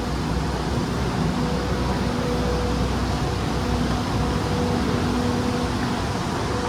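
Loud, steady machinery drone with a constant low hum, filling an underground car park; loud enough to be called ear-splitting.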